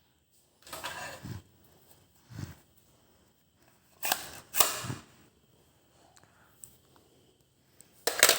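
Nerf blasters firing during a foam-dart battle: about five sharp shots spread over several seconds, the loudest near the end.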